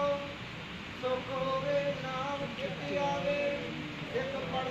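A congregation of worshippers singing a devotional chant together, several voices at different pitches overlapping.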